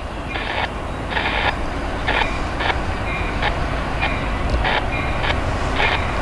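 Approaching diesel freight train, its low rumble growing steadily louder. A crossing bell rings over it in short, repeated dings, about one or two a second.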